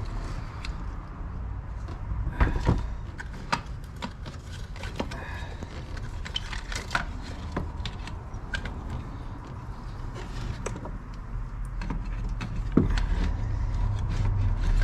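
Handling of metal parts and tools: scattered clinks and knocks, louder about two and a half seconds in and near the end, over a steady low hum.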